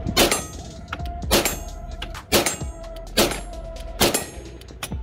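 Six pistol shots from a Glock 34, fired in a steady string a little under a second apart.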